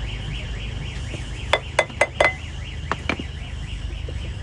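Electronic alarm-type tone warbling up and down about three times a second over a steady low rumble, with a quick run of sharp metallic clinks near the middle.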